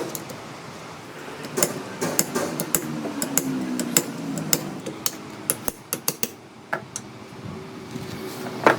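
Irregular sharp metallic clinks and knocks, a dozen or so strikes spread over several seconds, as of steel tools or parts being struck or handled.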